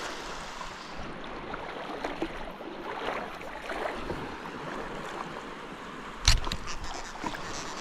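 Shallow water sloshing and splashing around legs being waded through, with one sharp knock a little over six seconds in.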